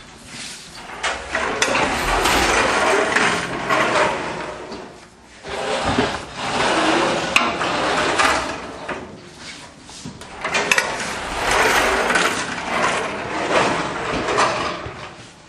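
Dense mechanical clatter and knocking from fireworks-workshop work, in three stretches of several seconds each with short lulls between.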